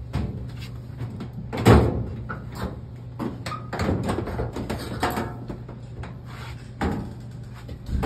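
Knocks, bumps and rattles of hands working on a clothes dryer being reassembled, a handful of sharp knocks with the loudest about two seconds in, over a steady low hum.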